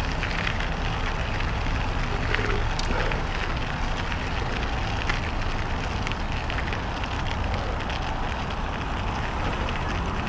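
Electric mountain bike riding along a gravelly path: tyres crunching and crackling over grit, with wind rumbling on the microphone.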